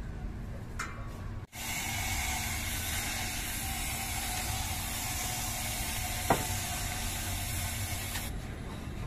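Small diesel engine of a water-well drilling rig running as a steady low rumble, with a loud even hiss that sets in about a second and a half in and stops abruptly near the end. A single sharp knock comes about six seconds in.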